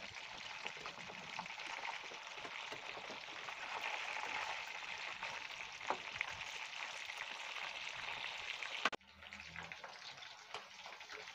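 Marinated chicken kebab pieces deep-frying in hot oil: a steady sizzle flecked with small crackles and pops. About nine seconds in it drops suddenly to a quieter sizzle.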